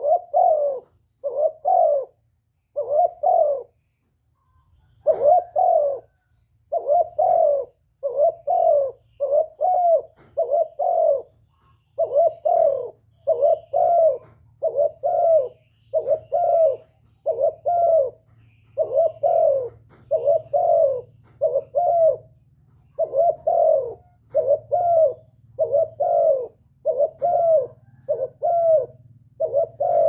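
Spotted dove cooing over and over, short coos coming about one every half second to second, with a brief pause about four seconds in. A faint low hum runs under the calls from that point on.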